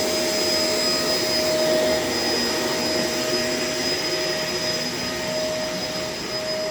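Shark LA702 corded vacuum cleaner running steadily: a constant motor whine with a fainter high whistle over an even rushing noise.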